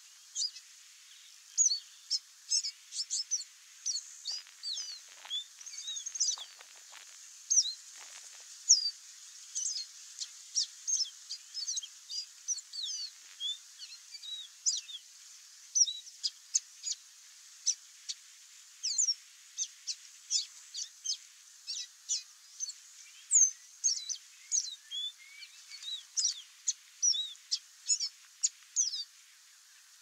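Male chestnut seedeater singing: a long run of short, high whistled notes and quick slurred chirps, closely spaced with brief gaps.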